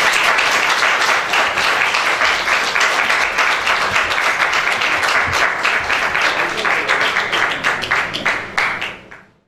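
Audience applauding: dense clapping that thins out into separate claps and dies away about nine seconds in.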